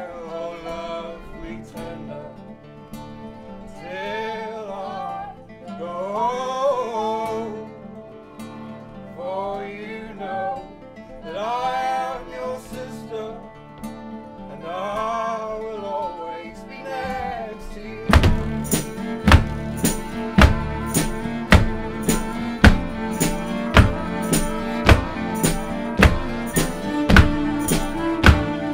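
Acoustic folk band playing: a man sings over strummed nylon-string guitars and a fiddle. About eighteen seconds in, a steady beat joins, a foot stomping on a wooden floor about once a second with a jingling tambourine, and the music gets louder.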